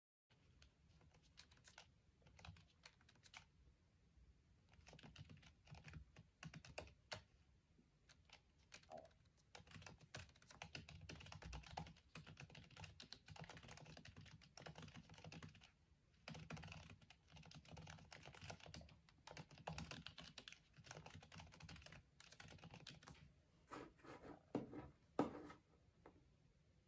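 Typing on a MacBook Pro laptop keyboard: a quiet, irregular patter of key clicks, with a few heavier strikes near the end.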